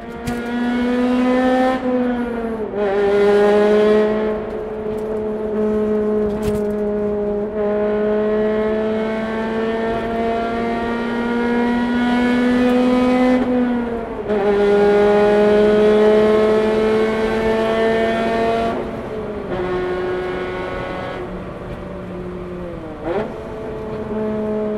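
Honda Civic Type R FD2's 2.0-litre four-cylinder VTEC engine and exhaust under way in a road tunnel, its pitch climbing slowly in each gear and dropping sharply at upshifts a few seconds in, about halfway and around three-quarters of the way through, with a brief dip and pick-up near the end.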